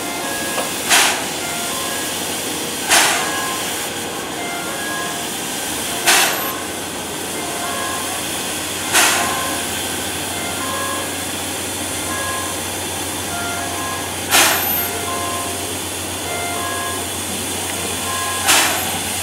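Steam locomotive C11 325 standing on a turntable, hissing steadily, with six short, sharp bursts of hiss at uneven intervals of a few seconds.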